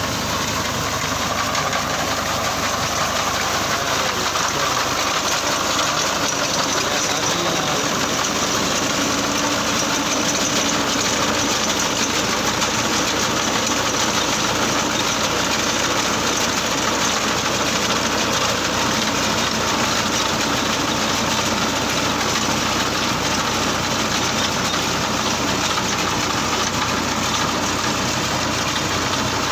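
A 480 tractor's diesel engine runs steadily under load as it pulls a wheat reaper through standing wheat, mixed with the chatter of the reaper's cutting blades.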